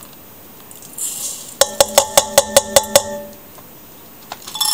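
Stainless steel measuring cup knocked rapidly against the rim of a stainless steel pot, about eight sharp metallic clinks that ring briefly, shaking the last grains of dry rice out of the cup. Just before, a short hiss of dry rice sliding from the cup into the pot.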